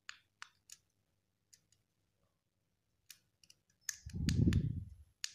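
Small plastic button clicks, a few in quick succession and then another cluster, as the buttons of an Eachine RD200 FPV watch monitor are pressed to move through its menu. A louder, muffled low rumble of handling comes about four seconds in.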